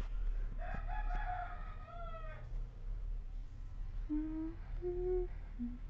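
A rooster crowing once in the background, one long call starting about half a second in and falling away at its end. Near the end come three short, low steady notes.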